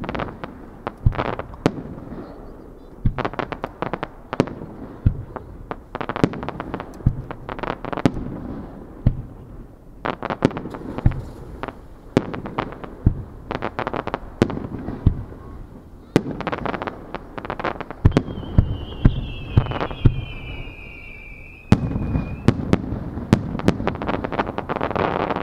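Aerial fireworks shells bursting in quick succession: sharp bangs and clusters of crackling over a low rumble. About eighteen seconds in, a high whistle falls slowly in pitch for about four seconds, and near the end the bangs come thicker and louder.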